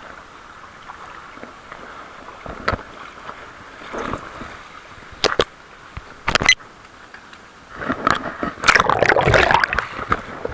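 Seawater sloshing and lapping around rocks close to a camera held at the waterline, with a few sharp knocks. About eight seconds in comes a louder burst of splashing that lasts about two seconds as water washes up against the lens.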